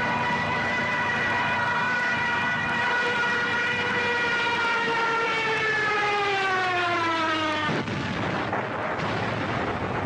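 Air-raid siren wailing: a steady tone held for several seconds, then sinking in pitch before it cuts off suddenly about eight seconds in, over a steady rushing noise.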